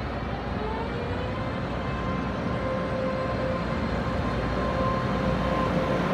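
Electric multiple-unit train's traction motors whining in steady tones over a running rumble, growing gradually louder as the train draws near.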